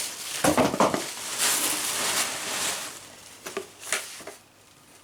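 Gift wrapping rustling and crinkling as it is handled and opened by hand, loudest over the first three seconds, then dying down to a few light rustles and taps.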